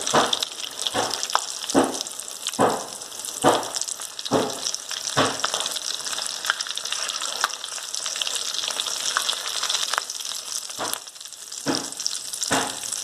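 Vermicelli-coated potato nests deep-frying in hot oil, a steady sizzle, with light knocks about once a second in the first half and again near the end as a utensil works the pan.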